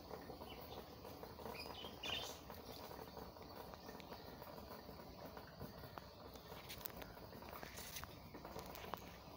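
Faint outdoor garden ambience with scattered light ticks and a short cluster of high chirps about two seconds in.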